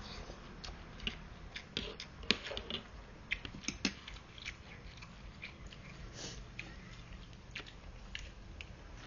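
Someone eating noodle soup close to the microphone: wet chewing and mouth clicks, with a run of sharp clicks about two to four seconds in.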